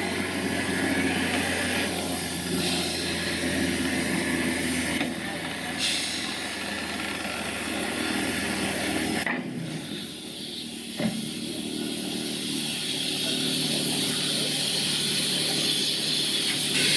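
WD Austerity 2-10-0 steam locomotive standing with steam hissing steadily from below the cab. A low hum under the hiss cuts off about nine seconds in, and there is a single click a couple of seconds later.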